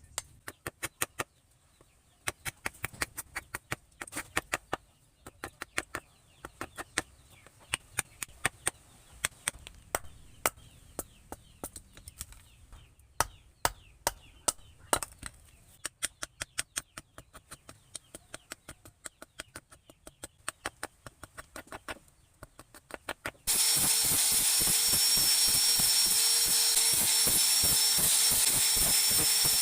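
Hammer blows on steel at the anvil, many sharp strikes in quick, irregular runs. Near the end a power tool starts abruptly and runs loudly with a steady whine.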